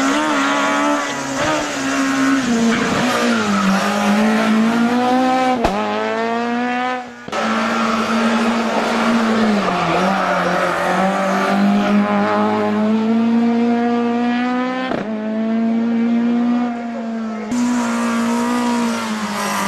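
Turbocharged Renault Clio Kit Car rally engine revving hard under full throttle, its pitch climbing through each gear and dropping at every shift or lift. The sound breaks off abruptly a few times where clips are spliced together.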